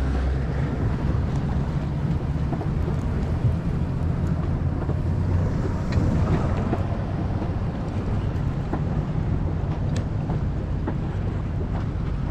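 Low, steady hum of a boat's twin outboard engines idling, with wind on the microphone and water noise over it.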